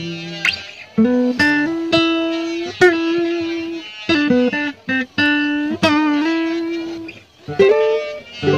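Background music: a plucked guitar melody of single notes, each struck sharply and left to ring, with short pauses between phrases.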